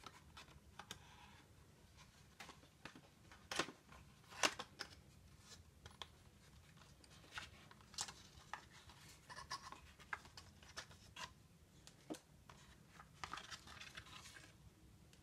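Hands handling a white cardboard box: scattered light taps and clicks, with two sharper knocks a few seconds in, and cardboard sliding and rustling near the end as an inner piece is drawn out of it.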